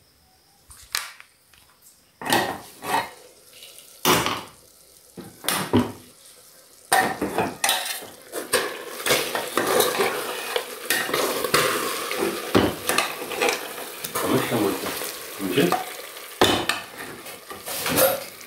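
Metal clanks and knocks of an aluminium pressure cooker's lid being handled and taken off, then from about a third of the way in a spoon scraping and stirring beef ribs cooked in onion in the pot, with the hot meat sizzling.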